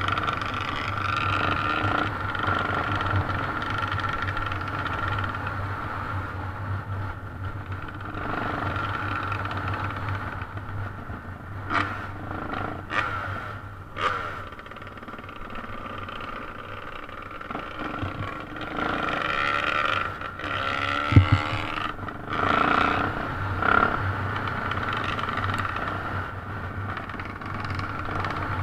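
Yamaha TT600R's single-cylinder four-stroke engine running while riding a gravel track, its pitch and loudness rising and falling with the throttle. Several sharp knocks from the bike over rough ground partway through, the loudest about two-thirds of the way in.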